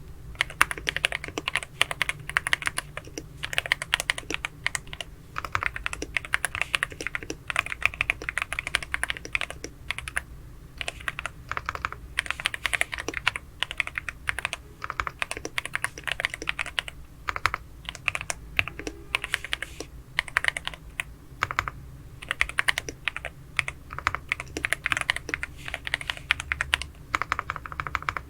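Typing on a Sugar 65 mechanical keyboard fitted with Attack Shark Banana linear switches: fast runs of keystrokes in bursts, with short pauses between them.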